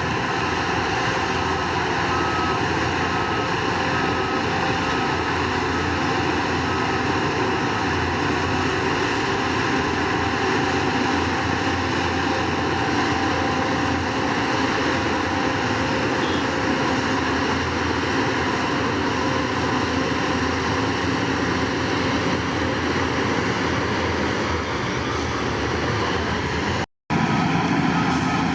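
Bulldozer's diesel engine running steadily under load, a dense mechanical drone. A faint backup alarm beeps at the start and again near the end. The sound cuts out for a moment shortly before the end.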